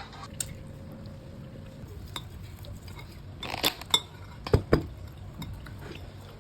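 Kitchenware clinking and knocking: a handful of sharp clinks and knocks bunched together a little past halfway, over a steady low background hum.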